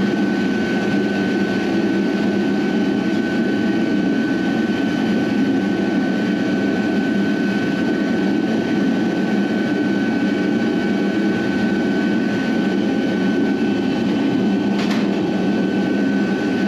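Gas-fired crucible furnace burner running with a steady, loud rushing noise and a constant high whine over it, as the furnace heats the metal for pouring. One sharp click comes near the end.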